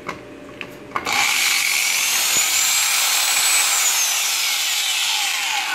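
Kawasaki 4.5-inch variable-speed electric angle grinder set to its lowest speed. It is switched on after a few small clicks about a second in and runs with a steady high whine, which slowly falls in pitch toward the end.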